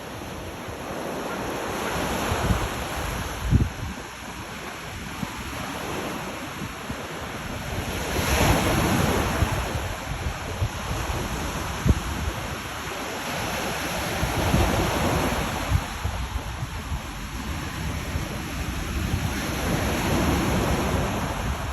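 Ocean waves washing onto a shore, swelling and falling back about every six seconds, with wind buffeting the microphone in low thumps.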